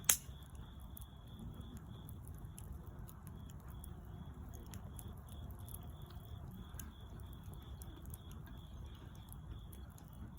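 Wood fire crackling, with scattered sharp pops and one loud pop at the start over a low steady rumble of burning.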